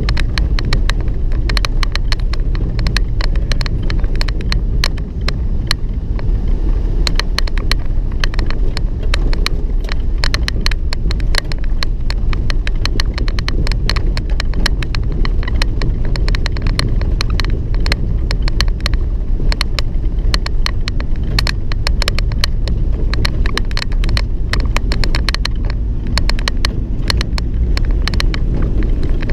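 Inside a moving vehicle: a steady low rumble from the engine and road, with the door squeaking and rattling in a dense, irregular run of sharp clicks as the vehicle rolls over the bumps.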